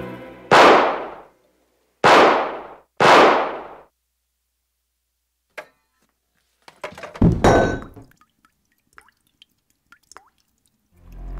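Three pistol shots, the second and third about a second apart, each ringing off in a short echo. A few seconds later comes a heavy thud with some clatter, then a few faint small ticks.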